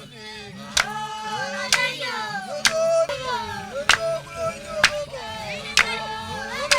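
A group of voices singing a chant-like song, with a sharp hand clap about once a second keeping the beat.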